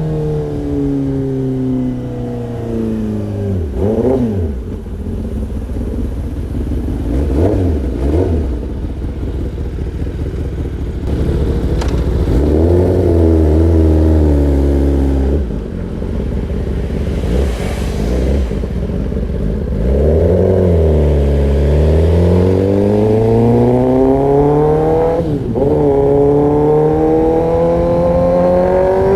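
Kawasaki ZX-10R inline-four running through an Arrow Pro-Race exhaust. The engine note falls and rises again several times as the bike slows and accelerates, with a long climbing rev near the end.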